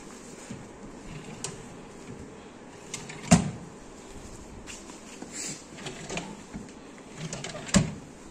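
Knocks and clicks from handling the drawers of a flat-pack Solimo TV unit: two sharp knocks about four seconds apart, with lighter clicks between.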